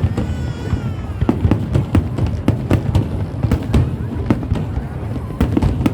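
Fireworks going off in rapid, irregular bangs, some close and sharp. A falling pitched tone sounds in the first second.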